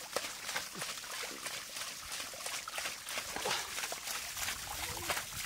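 Water splashing and trickling in quick, irregular little splashes, as when shallow water is stirred by wading or by working hands and fish.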